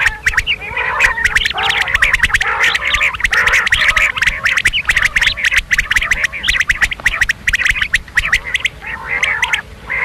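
Coturnix quail calling in a dense, continuous chatter of rapid clicks and short squawky calls that overlap one another.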